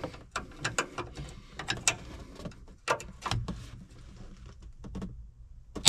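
Irregular sharp metallic clicks and clinks of hand tools being handled, going quiet shortly before the end.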